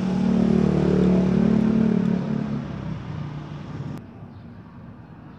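A steady low motor hum, loudest in the first couple of seconds, then fading out about three to four seconds in.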